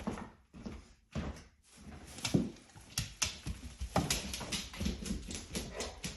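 Pit bull chewing and smacking its mouth over food, making a run of irregular wet clicks that come thicker from about two seconds in.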